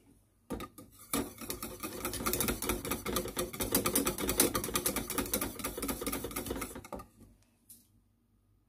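Wire whisk beating a hot cornstarch custard in a stainless steel saucepan to melt in butter: a fast, rattling run of metallic clicks as the wires strike the pan. It stops about seven seconds in.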